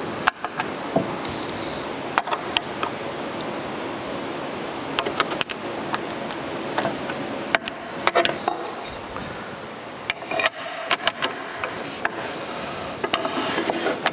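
Scattered sharp metal clicks and clinks of hand tools and screw hardware as a replacement knife is fastened onto a cast-iron miter trimmer, over a steady background noise.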